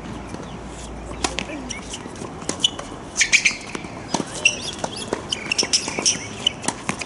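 Doubles tennis rally on a hard court: a run of sharp knocks from racket strikes and ball bounces, mixed with short high squeaks from sneakers on the court surface.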